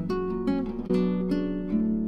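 Acoustic guitar music with plucked notes and strummed chords.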